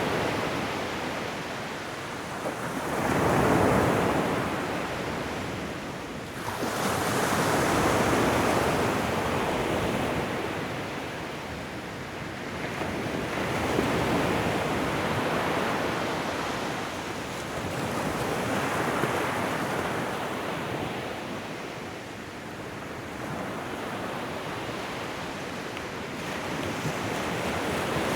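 Ocean waves breaking and washing up a shoreline, a continuous rushing surf that swells and fades about every five or six seconds.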